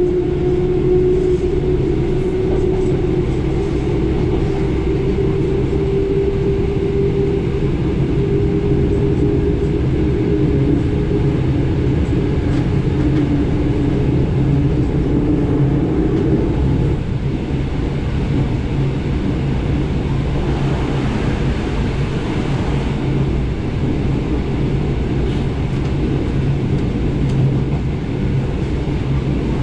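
Inside an SKM Tricity electric commuter train running along the line: a steady rumble of wheels on rail with the train's motor whine over it, which wavers and dies away about halfway through.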